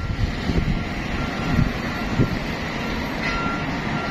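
Steady rumble of vehicles and construction machinery with some wind on the microphone, and a faint reversing beeper repeating evenly behind it.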